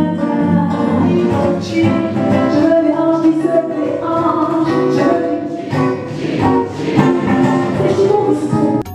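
A woman singing a French-style song with a touch of jazz, accompanied by nylon-string acoustic guitar. Just before the end the song cuts off abruptly, giving way to bright mallet-percussion notes.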